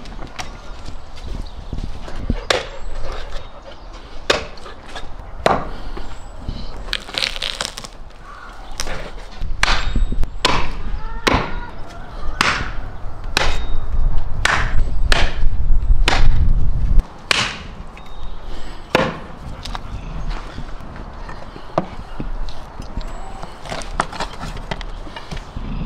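Meat cleaver chopping through raw meat and bone on a wooden stump: a series of sharp, irregularly spaced strikes, thickest in the middle. A low rumble runs under the middle strikes and cuts off suddenly.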